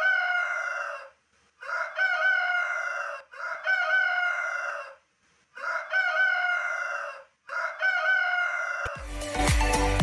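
Rooster crowing again and again, about five crows in a row with short pauses between them. Upbeat electronic music starts near the end.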